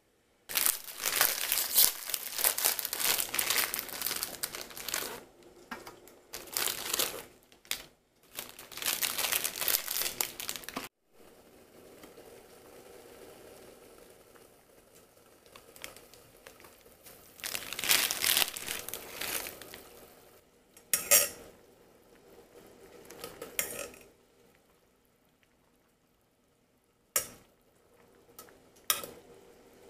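Instant noodles cooking in an electric hot pot. There is loud crinkling and rustling at first and again later, a steady bubbling of boiling water in the middle, and sharp metal clinks of the lid and chopsticks against the steel pot near the end.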